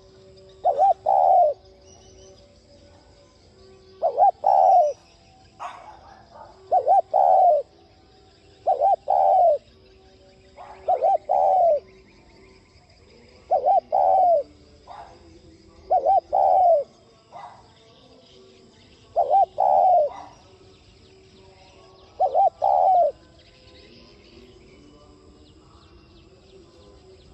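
Spotted dove singing its cooing song. Short phrases of two or three notes are repeated about nine times, every two to three seconds, and stop a few seconds before the end.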